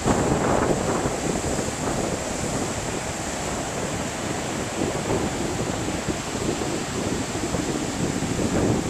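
Ocean surf breaking and rushing on a beach, a steady wash of noise, the waves stirred up by an approaching hurricane. Wind buffets the microphone.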